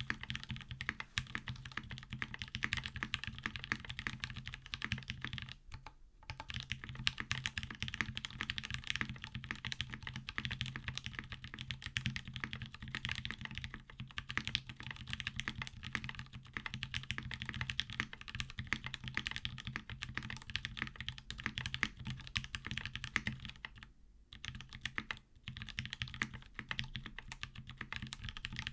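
Continuous fast typing on a custom mechanical keyboard with lubed linear Gateron Black Ink switches, a carbon fibre half plate and GMK keycaps: a dense run of deep, muted keystrokes. It breaks off briefly about six seconds in and again near the end.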